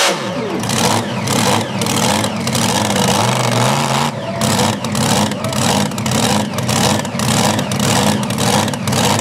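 Mini modified pulling tractor's engine coming off full throttle at the end of a pull, its pitch falling away over about half a second, then settling into an uneven, lumpy idle.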